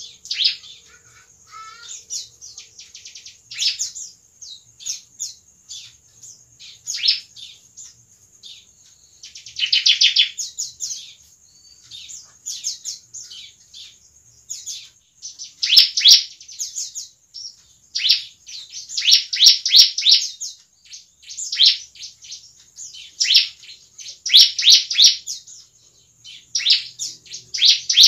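Bar-winged prinia (ciblek) singing: bout after bout of rapid, high chirps, each bout up to a second or so long, with short pauses between.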